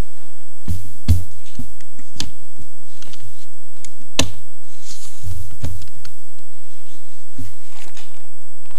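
Knocks and low thumps on a pulpit microphone as papers are handled at the pulpit, with a sharp click about four seconds in.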